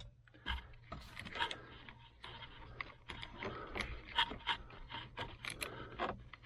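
Irregular small plastic clicks, ticks and scrapes, several a second, as the old headlight/turn-signal switch module and its wiring connectors are worked loose from a 2006 Jeep Wrangler's steering column.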